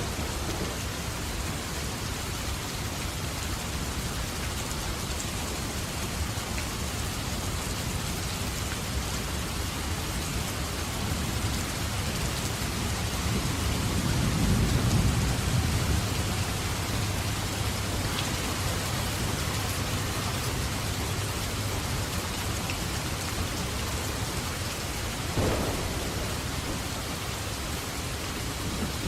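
Steady rain falling, with a low rumble of thunder swelling and fading in the middle and a brief sharper hit about three quarters of the way through.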